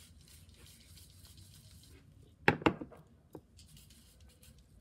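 Aerosol bug-spray cans being handled and knocked together, with two sharp clunks about halfway through and a lighter knock a little later, amid faint rubbing and rustling.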